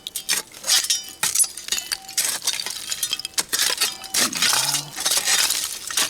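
Broken glass and old bottles clinking and scraping as the dump is dug through: a rapid, irregular run of sharp clinks, some with a short glassy ring.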